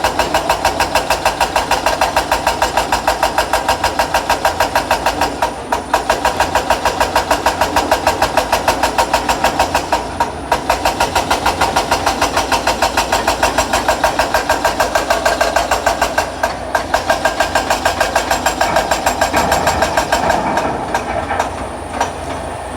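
Excavator engine running with a steady, even pulsing of about five beats a second, which dips briefly three times and eases off near the end.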